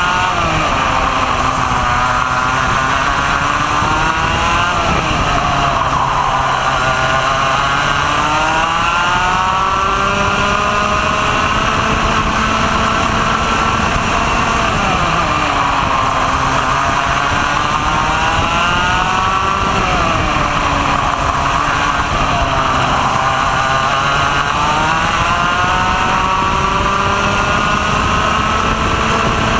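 Onboard sound of a racing kart's 125 cc two-stroke Vortex ROK engine at full racing pace: the engine note climbs steadily through the revs along each straight, then drops sharply as the driver brakes for a corner, several times over.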